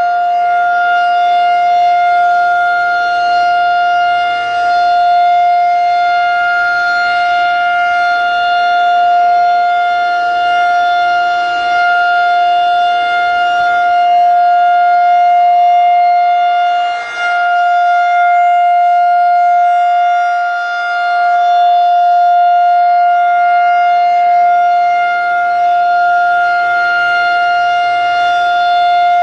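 Federal Signal 2001-130 rotating electromechanical outdoor warning siren sounding the steady full-alert tone. The pitch holds level while the loudness swells and dips a few times.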